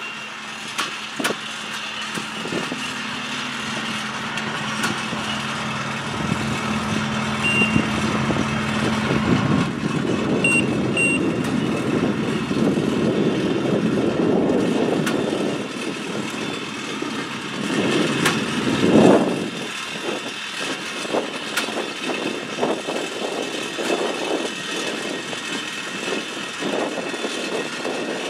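Engine of a rail-mounted tie-plate machine running as it works along the track. A steady hum gives way to louder rumbling surges around the middle and again about two-thirds of the way through, with scattered sharp metallic clanks toward the end.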